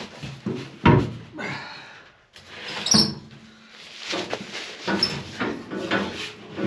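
A metal van fuel tank being shoved and shifted up into position by hand: a series of knocks and bumps, the loudest about one and three seconds in, the second with a brief metallic ring, then a run of smaller knocks.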